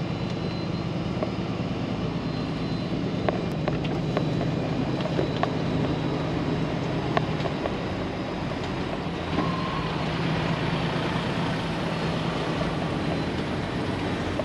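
Diesel engine of a Freightliner Cascadia semi truck, heard from inside the cab as a steady low drone while the truck rolls slowly, with a few faint clicks.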